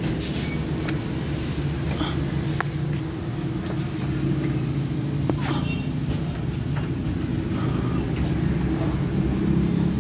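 Vehicle engine running steadily at idle, a low rumble, with a few scattered light clicks over it.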